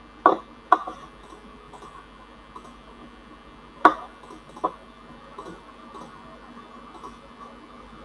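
Computer mouse clicking: two sharp clicks near the start and two more about four seconds in, with a few fainter ticks, over a faint steady background hum.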